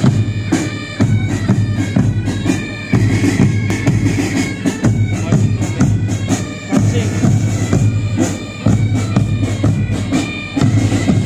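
Pipe band playing: bagpipes carry a tune over a steady low drone, with bass and side drums beating time.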